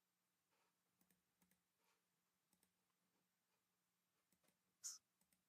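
Near silence broken by a few faint clicks from a computer mouse and keyboard, with one slightly louder click near the end.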